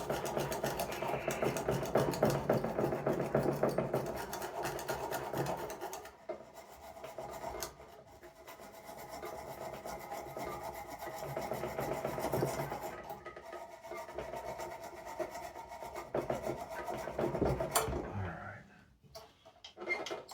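Rapid hand scraping and rubbing on the rusty ignition coil posts of a vintage Briggs & Stratton engine, cleaning off rust to restore the ignition contacts. The strokes are fast and dense for the first six seconds, then lighter and intermittent, stopping near the end.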